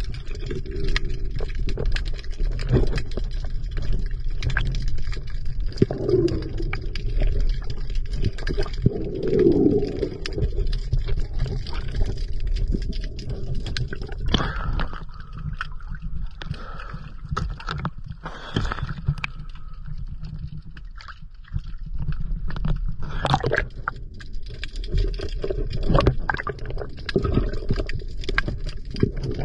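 Water sound picked up by an underwater camera: a steady low rumble, with gurgling bursts of bubbles every few seconds from a diver's breathing.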